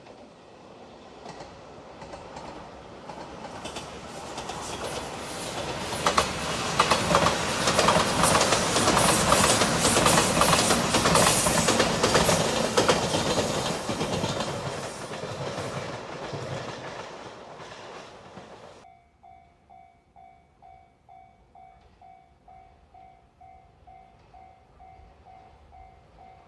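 Five-car Shiokaze limited express, a JR Shikoku 8000 series Anpanman train, passing close by: its wheels clickety-clack over the rail joints, rising to a loud peak and fading. The sound cuts off suddenly about two-thirds of the way through, leaving a level crossing's electronic warning bell ringing about twice a second.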